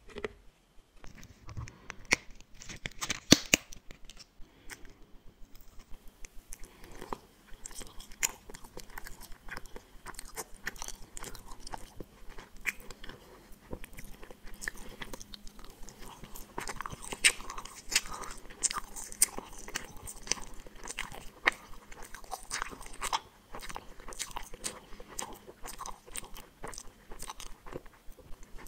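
Close-miked chewing and biting of gummy candies: a dense run of small clicks from the mouth, heavier for a couple of seconds near the start and again past the middle.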